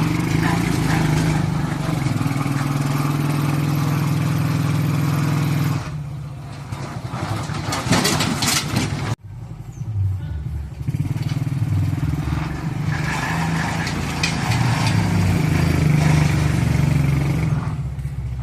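Suzuki 125cc motorcycle engine running in a small four-wheeled mini truck: it runs steadily for about six seconds, drops off, and after an abrupt break about nine seconds in it runs again with a shifting pitch.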